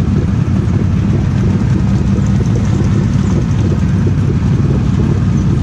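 Polaris Sportsman 850 Highlifter's engine idling, a steady low rumble heard up close from a camera mounted on the machine's handlebars.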